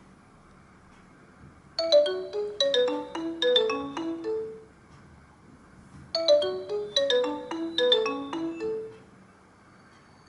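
Nokia Asha 302 ringtone: a short melody of quick, bright notes, played twice with a pause of about a second and a half between.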